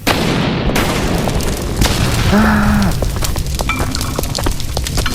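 Battle sound effects: explosions booming and gunfire cracking densely throughout, with a brief shout partway through.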